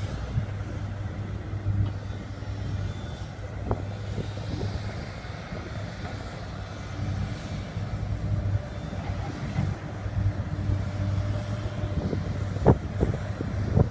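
Diesel engines of heavy mining machinery, excavators and dump trucks, running with a steady low drone, with a few sharp knocks near the end.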